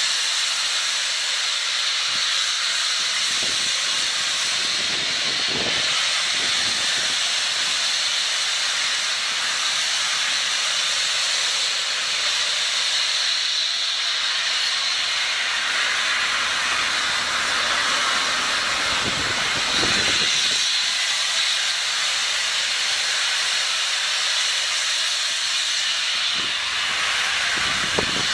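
Steam hissing loudly and steadily from the Peppercorn A1 Pacific steam locomotive 60163 Tornado as it runs slowly into the station.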